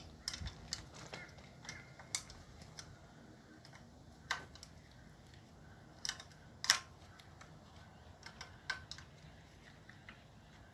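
Scattered metallic clicks and clinks of a spanner working a bolt on a steel bracket, at an uneven pace with one sharper clink about two-thirds of the way through.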